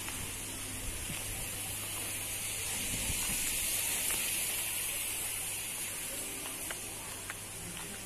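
Steady hiss of running, splashing water that swells around the middle and eases toward the end.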